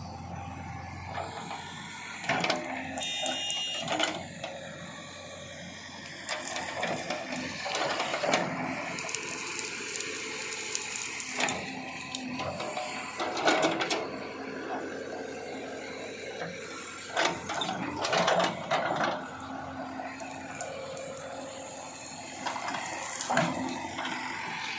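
Backhoe loader working: its engine running under uneven load, with repeated irregular knocks and clatter.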